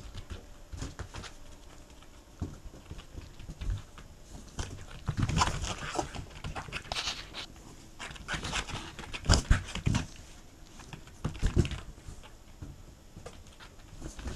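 Pembroke Welsh corgi playing with an inflated balloon: panting and snuffling, with irregular knocks and rubs as the balloon bumps against its nose and the floor, coming in uneven bursts.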